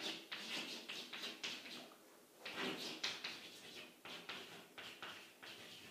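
Chalk writing on a chalkboard: a run of short scratches and taps as symbols are written, with a brief pause about two seconds in.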